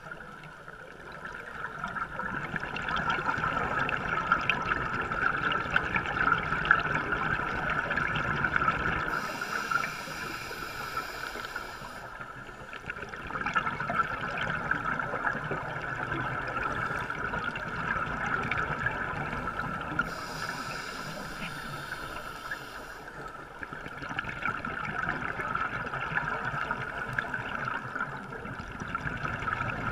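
Underwater noise picked up through a camera housing on a scuba dive: a diver's regulator breathing, long stretches of crackling, bubbling exhalation alternating with shorter quieter inhales about every ten seconds.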